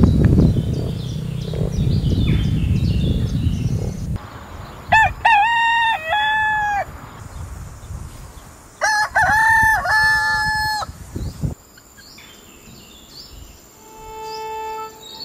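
A rooster crowing twice, each crow about two seconds long. Before that, a low rumbling noise with small birds chirping stops abruptly about four seconds in, and soft instrumental music begins near the end.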